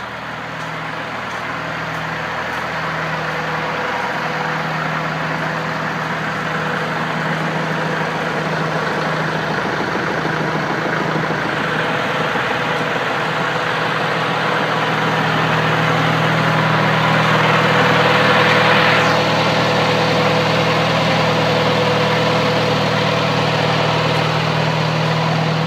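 A tractor engine idling steadily, growing louder through the first fifteen seconds or so. A hiss builds up midway and stops suddenly a few seconds later.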